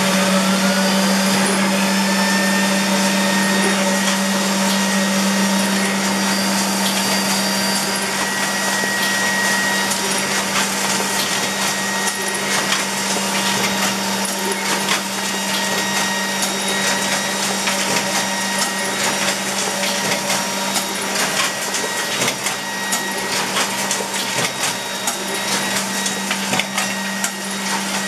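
Horizon VAC-100 suction-feed collator tower and SPF-20 stitcher-folder bookletmaker running: a steady motor and air-blower hum under rapid mechanical clicking and clatter of sheets feeding and booklets being stitched and folded, the clicking busier in the second half.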